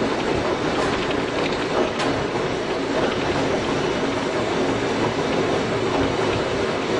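Tobu 5700 series electric train with nose-suspended traction motors, running steadily along the line. The motor hum blends with wheel-on-rail rumble, and a single sharp click comes about two seconds in.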